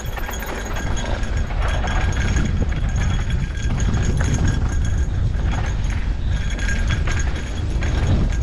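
Mountain bike rolling fast down a dry dirt singletrack: tyres crunching over dirt and stones and the bike rattling with many small clicks and knocks, over a heavy, steady wind rumble on the camera microphone.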